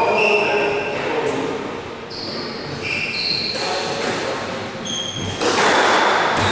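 Squash shoes squeaking on the wooden court floor in many short high chirps, with a few thuds from a ball bouncing and footsteps, echoing in the court.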